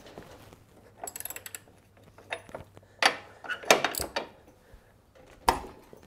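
Ratchet wrench with a 28 mm socket working loose the oil filter adapter on a lawn tractor engine. A quick run of ratchet clicks comes about a second in, then several sharp metallic knocks from the tool.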